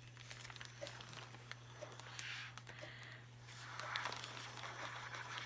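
Two soft puffs of breath blown through a drinking straw into a plastic bag holding scraps of paper, about two seconds in and again around four seconds in, with small scattered ticks from the bag and paper.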